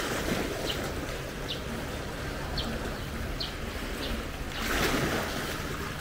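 Wind buffeting the microphone over a steady wash of sea water, swelling louder for about a second near the end. A few faint, short, high chirps come and go on top.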